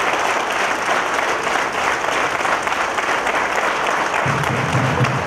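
Large audience applauding, a dense, steady clapping. A low steady tone joins about four seconds in.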